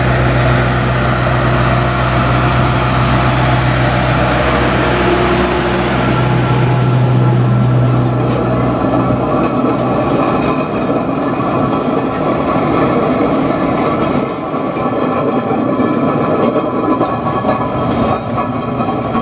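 Narrow-gauge diesel locomotive passing slowly, its engine drone strong at first and fading after several seconds as the open carriages roll past with wheels rattling and squealing on the rails.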